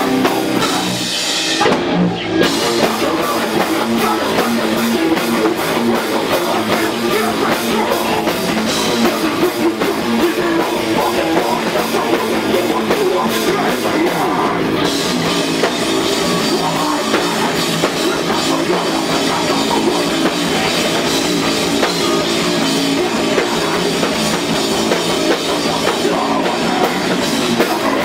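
Live rock band playing loud, with electric guitar, bass guitar and drum kit. The sound thins briefly about two seconds in, and gets brighter about halfway through.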